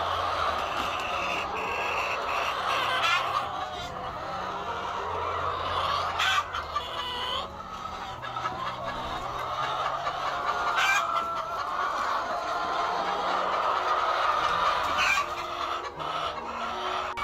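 A flock of white laying hens clucking together in a continuous din, with a few short sharp sounds standing out over it.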